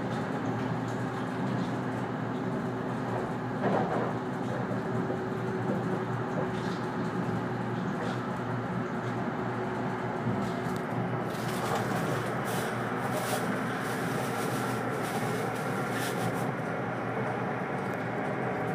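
Running noise of a 485-series electric train heard from inside the passenger car: a steady rumble of wheels on rail with a low hum. In the second half there is a run of short, high rattling clicks.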